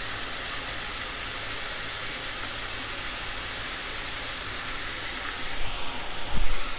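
Steady hiss from the gas cooktop, where chicken breasts are pan-frying and a pot of quinoa pasta is on the boil, with a low thump about six seconds in.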